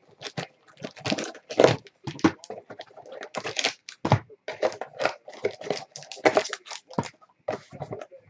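Wrapper of a pack of football trading cards being torn open and crinkled by hand: a string of irregular crackling rustles.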